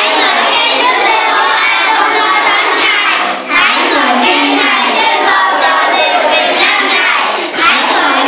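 A group of children, joined by a few adults, singing a praise song loudly together, with two brief breaks between phrases, about halfway through and again near the end.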